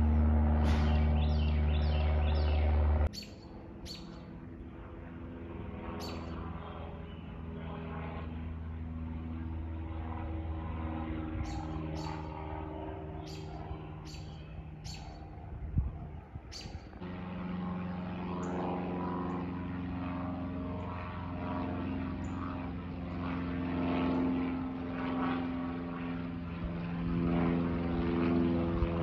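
Propeller aircraft passing overhead, its engine a steady drone of several tones that shift slightly in pitch. The drone is loudest for the first three seconds, then drops off sharply. Short bird chirps come through at times.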